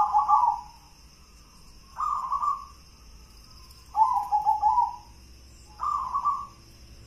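Zebra dove (perkutut) cooing its song in the 'gendolo sabdo' style: four phrases about two seconds apart, each a quick run of rolling coo notes.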